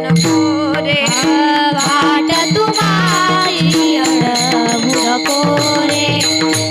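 Varkari kirtan music: a woman singing a gliding devotional melody over a steady held harmonium drone. Pakhawaj drum strokes and small hand cymbals keep a regular beat.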